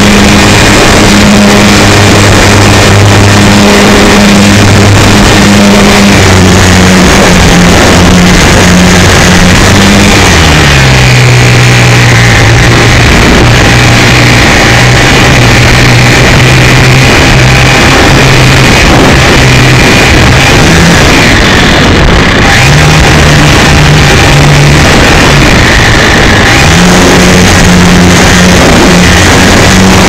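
Electric motor and propeller of an RC Super Cub S heard from a camera on board, a loud, distorted buzz over wind rush. Its pitch glides down about ten seconds in and climbs back in steps near the end as the throttle changes.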